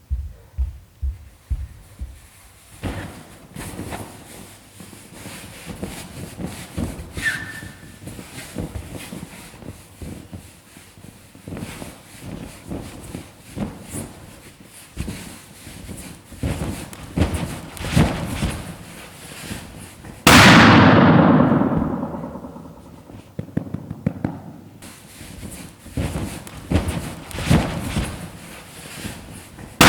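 Large latex balloons rubbing, squeaking and thudding as they are sat on and squeezed. About two-thirds of the way in, one bursts with a loud bang that rings on for a few seconds, and a second bang comes right at the end.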